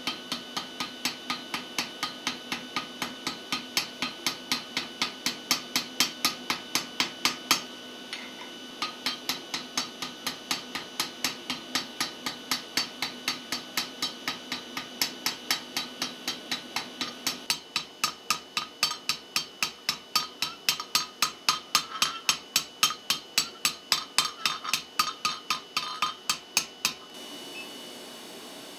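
Hand hammer striking a red-hot steel tube held in a V-block on an anvil, about four blows a second, forging a taper into the tube. There is a short break about 8 seconds in, and the hammering stops near the end.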